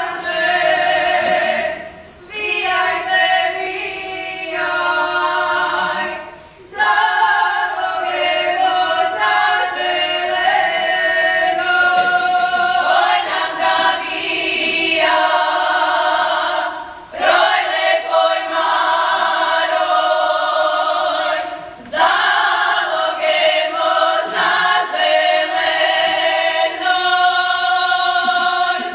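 Croatian Posavina folk song sung by a choir of women's voices in several parts, in long held phrases broken by short pauses for breath.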